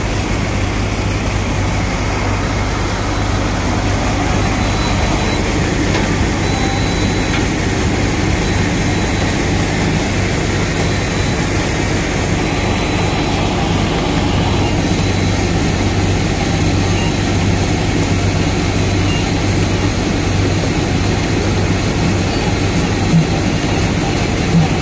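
Combine harvester's engine and machinery running steadily while it unloads threshed wheat through its spout, a loud, even drone with a strong low hum. A few short knocks come near the end.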